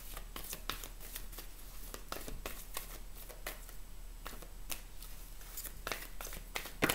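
A deck of oracle cards being shuffled by hand: cards sliding and slapping against each other in quick, irregular soft clicks, with one louder snap near the end.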